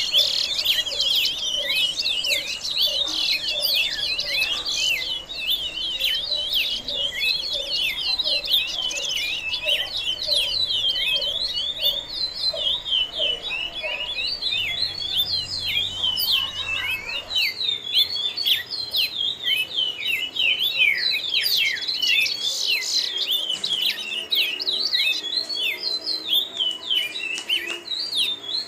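Birds chirping and singing in a dense, continuous stream of quick, high overlapping notes. A lower note repeats steadily underneath through the first half.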